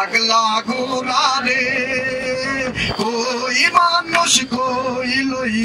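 A man singing into a microphone, amplified, holding long wavering, ornamented notes over a steady held accompaniment note.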